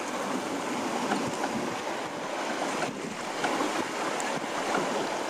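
Wind noise on the microphone and water rushing and splashing past a sailing yacht's hull under way, a steady noise without distinct events.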